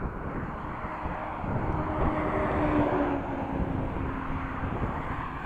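Wind buffeting the chest-mounted camera's microphone while cycling into a headwind, with a motor hum that swells and fades in the middle.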